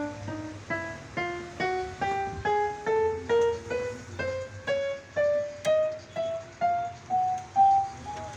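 Yamaha PSR-E443 electronic keyboard sounding one note after another, about two to three a second, climbing steadily in pitch as its keys are played in turn to test that each works after repair.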